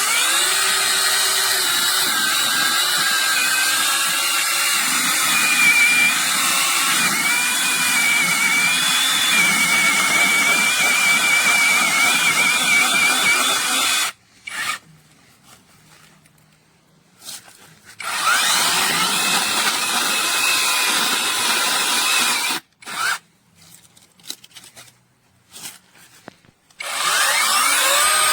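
Supstable cordless mini electric chainsaw's brushless motor spinning up to a whine and running under load with a wavering pitch, as when cutting wood. It stops about halfway through, then runs again in a longer stretch and several short trigger blips, and spins up once more near the end.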